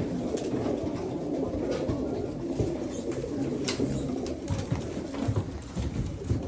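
A flock of young racing pigeons cooing together in a dense, continuous mass, with a few sharp knocks now and then.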